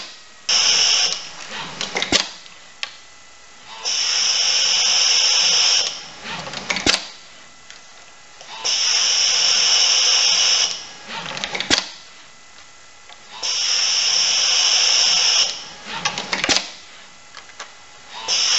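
Automated assembly machinery cycling: a high-pitched motorised whir that runs for about two seconds at a time, four times, with a sharp click in each pause between runs.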